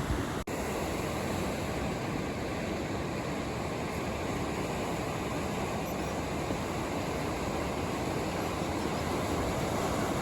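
Steady rush of typhoon-swell surf and wind, broken by a brief dropout about half a second in.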